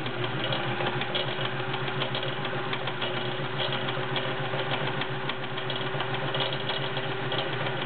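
Vintage Kenmore model 1430 sewing machine running steadily while sewing a zigzag stitch: a quiet electric-motor hum under a rapid, even needle clatter, stopping right at the end.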